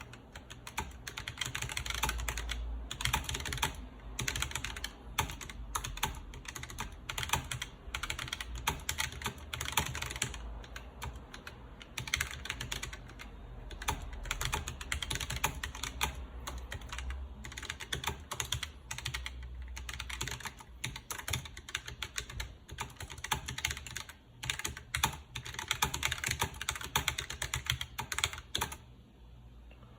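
Fast, continuous typing on a Keychron K1 low-profile mechanical keyboard with linear red switches: a dense, irregular patter of keystrokes that stops shortly before the end.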